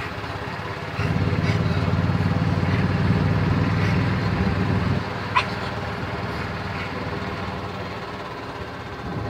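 Golf cart running while it rolls along, its motor noise louder for about four seconds and then easing back to a steady hum. A short sharp squeak sounds about five seconds in.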